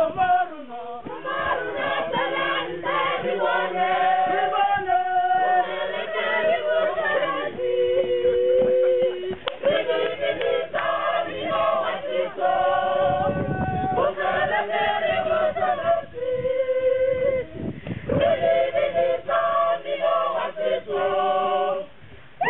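Mixed group of men and women singing together unaccompanied, as a choir.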